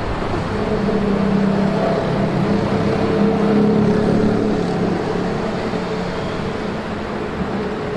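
Steady road-traffic noise with a low, level engine drone.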